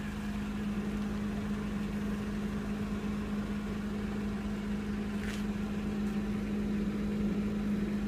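Honda Civic hatchback's engine idling steadily, an even low hum with no change in pitch.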